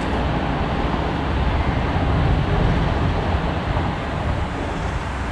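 Wind buffeting the microphone: a steady low rumble that swells and eases a little, with a hiss above it.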